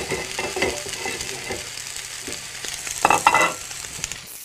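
Two sirloin steaks searing in a very hot frying pan with a touch of oil, sizzling steadily. This is the sound of a proper sear rather than the meat boiling. A short louder sound comes about three seconds in.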